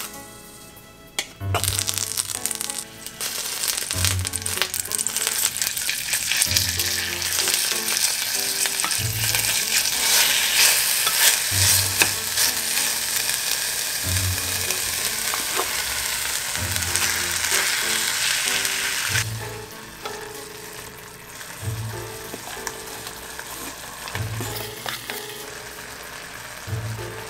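Meat sizzling as it fries in sesame oil in an earthenware ttukbaegi pot, with stirring; the sizzle drops to a softer level about two-thirds of the way through. Soft background music with a steady beat runs underneath.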